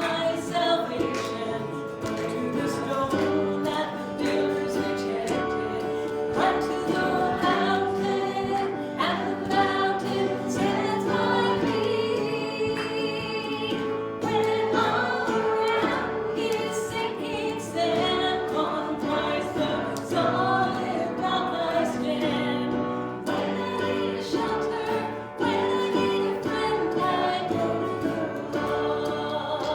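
Worship music: several voices singing a gospel-style song with acoustic guitar accompaniment.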